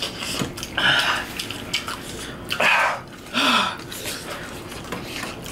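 Sharp, hissing breaths sucked in through the mouth, with sniffing, from people eating very hot chili-sauced chicken: three short bursts, one about a second in and two close together around the middle, the last with a brief hum of voice. Small clicks of eating between them.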